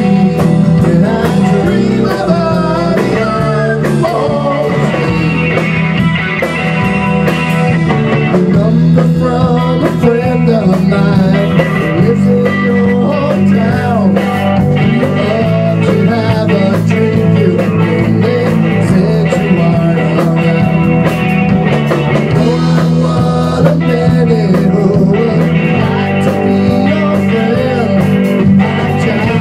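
A rock band playing live: electric guitar, bass guitar and a Tama drum kit, with a steady bass line and regular drum hits.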